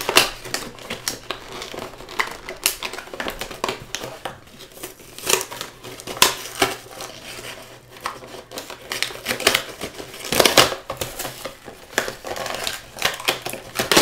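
Action-figure box packaging being handled and pulled open by hand: irregular crinkling of clear plastic and clicking of cardboard, with a louder burst of crackling a little past the middle and again near the end.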